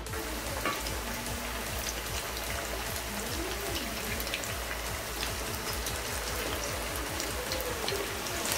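Batter-coated potato wedges deep-frying in hot vegetable oil: a steady, dense sizzle full of small crackles and pops.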